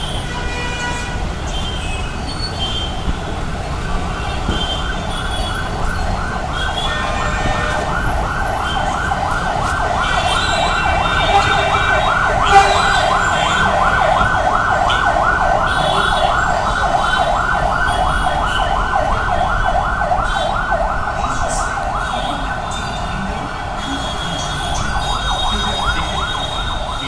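Emergency vehicle siren in a fast warbling yelp, repeating several times a second, growing louder toward the middle and then fading as it passes, over general traffic noise.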